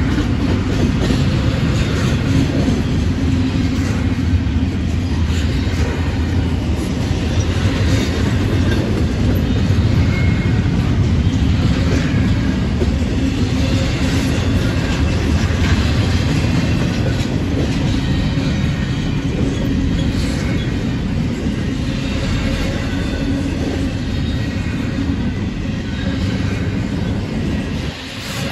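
Freight train cars rolling past at speed: a steady, loud rumble of steel wheels on rail, with repeated clacks as the wheels cross rail joints.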